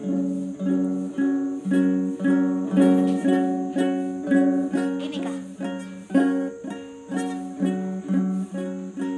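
Small six-string guitalele with nylon strings, strummed over and over on one chord shape by a beginner, about two strums a second.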